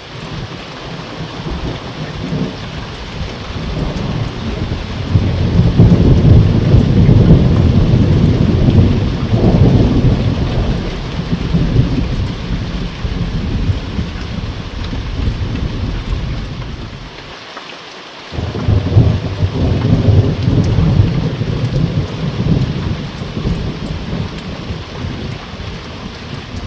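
Thunder rumbling over steady rain: a long rumble builds and fades over several seconds, then a second one breaks in suddenly about two-thirds of the way through and trails off.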